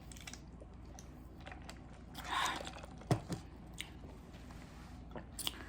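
Close-miked mouth sounds of someone chewing spaghetti in meat sauce: soft wet clicks and smacks, with a brief louder rush of noise a little before halfway.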